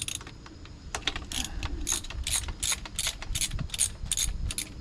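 Socket ratchet clicking in steady strokes, about three clicks a second, as it works a spark plug loose from the engine.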